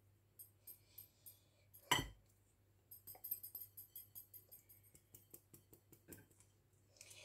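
Metal mesh sieve worked over a ceramic plate while sifting ground cashew powder: faint scratching and small clinks, with one louder knock about two seconds in and a quick run of light ticks and taps after three seconds as the sieve is shaken.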